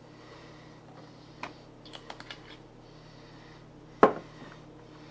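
Small clicks and taps from hands handling rifle-cleaning gear, a cluster of them near the middle, then one sharp knock about four seconds in.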